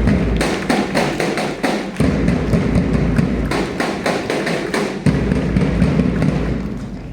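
A group of children clapping: a dense, irregular patter of hand claps over a low rumble on the microphone, dying away near the end.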